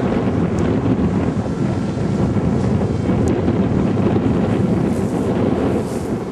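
Wind buffeting the microphone in a loud, rough low rumble, with the faint steady whine of a foam Mugi delta-wing RC plane's motor underneath.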